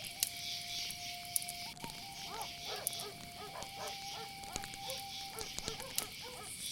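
Night ambience: crickets trilling steadily, a long held call with a run of short rising-and-falling calls over it through the middle, and scattered sharp pops of a crackling campfire.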